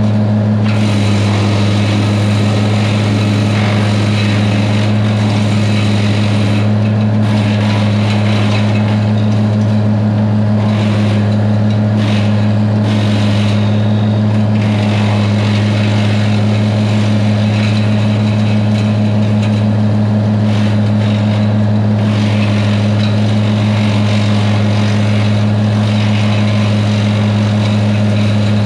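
Tractor engine running at a steady, unchanging speed.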